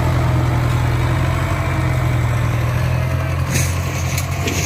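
Ford 6610 tractor's diesel engine running steadily while the tractor pushes soil, with a few short clatters about three and a half seconds in.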